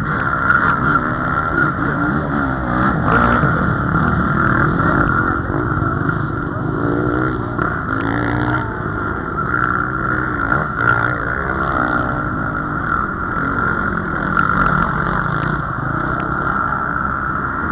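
Several motocross motorcycles racing on a dirt track, their engines revving up and down in pitch as the riders accelerate and pass, overlapping in a loud continuous mix.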